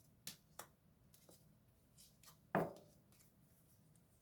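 Tarot cards being handled and laid down on a table: a few short taps and clicks, two close together near the start and a louder one about two and a half seconds in.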